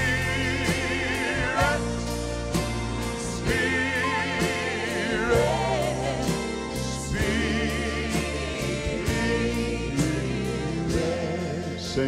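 Live gospel music: a mixed vocal group singing long held notes in harmony, with vibrato, over grand piano and band accompaniment.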